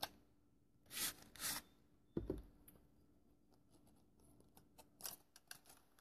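Product packaging being opened by hand: two brief rustles of paper, a soft thump about two seconds in, then a few light clicks and scrapes of a small cardboard box near the end.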